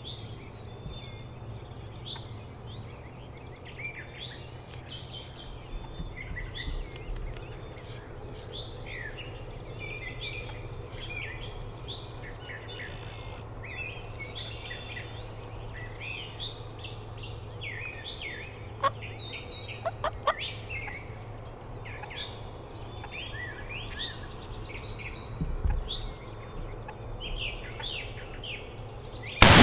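Birds calling continuously in a dense run of short chirps, then a single loud shotgun blast right at the end as the turkey is shot.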